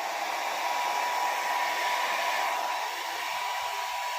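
Havells hair dryer running steadily: a continuous rush of blown air with a thin, steady motor whine.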